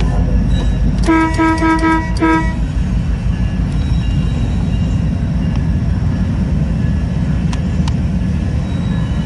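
Diesel locomotive horn sounding in a short, broken blast about a second in, over the steady low rumble of a passing freight train, with a couple of faint clicks near the end.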